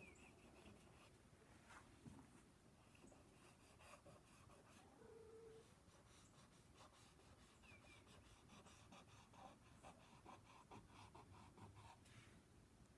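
Faint scratching of a black Conté crayon on drawing paper, worked in quick short strokes to feather fur.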